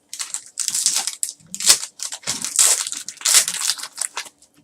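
Foil trading card pack wrapper crinkling and crackling in irregular bursts as it is handled and torn open.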